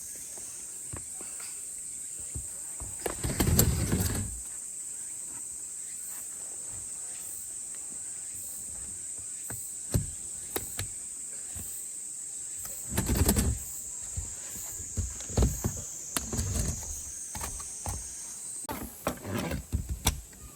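A steady, high-pitched drone of summer insects, typical of a cicada chorus. It is broken by bursts of clattering and knocking from things being handled: about three seconds in, again around thirteen seconds, and several times near the end.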